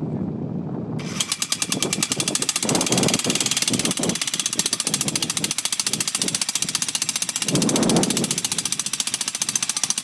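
Electric jackhammer with its bit modified to accept pipe, pounding a metal pipe fence post into gravelly ground. Rapid, steady hammering starts about a second in and stops near the end.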